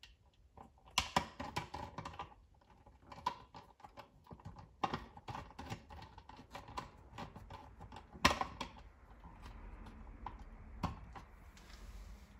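Irregular light clicks and taps of low-voltage wires being fitted and fastened in the plastic 24 V terminal block of an Orbit b-hyve sprinkler controller, with sharper clicks about a second in and again about eight seconds in.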